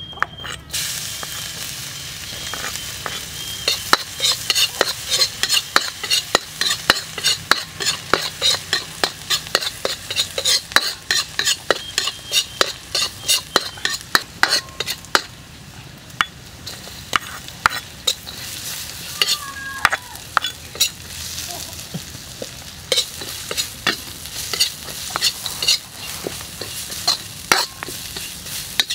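Chopped garlic and chili, then shredded ginger, sizzling in hot oil in a steel wok while a metal ladle stirs, scraping and clanking against the wok at about three strokes a second.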